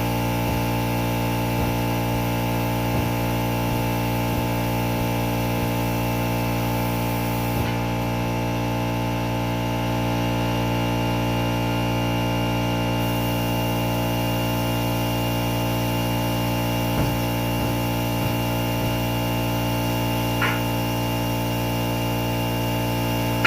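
A motor running steadily with a low, even hum, with a few faint ticks and a short click near the end.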